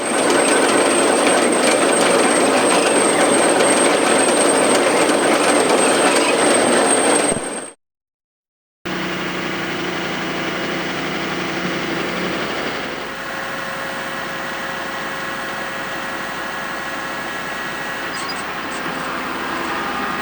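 A loud, dense rushing noise with a steady high whistle for about seven seconds, then a sudden cut to a second of silence. After it, a John Deere 6140R tractor pulling a Dewulf potato harvester: steady engine hum with the harvester's machinery running and clattering, one of the low hums dropping away about thirteen seconds in.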